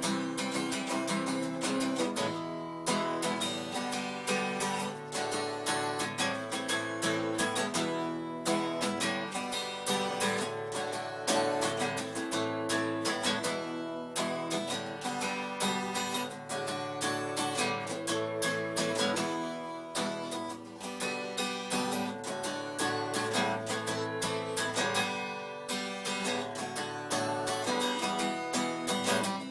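Acoustic guitar being strummed, playing a simple tune with a steady rhythm.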